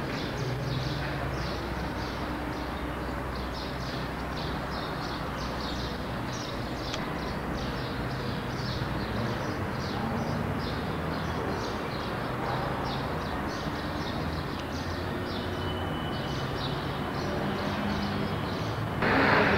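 Steady low rumble of a car on the move, engine and road noise heard from inside, with a continuous run of short high ticks several times a second.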